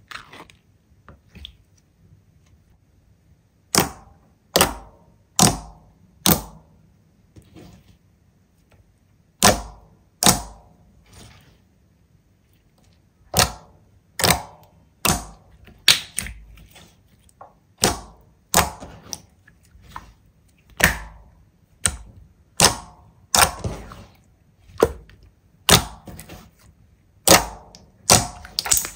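Slime being pressed and handled, letting out a series of sharp pops and clicks, roughly one a second, with a couple of short lulls.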